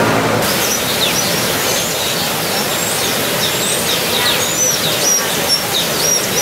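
Small aviary birds chirping: many quick, high chirps, one after another, over a steady rushing hiss.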